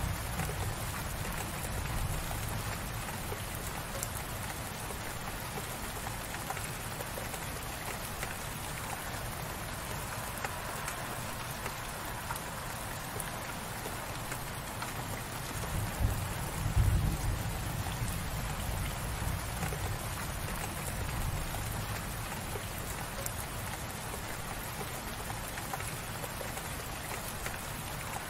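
Light rain falling steadily, an even patter of drops. A brief low rumble rises and fades a little past halfway and is the loudest moment.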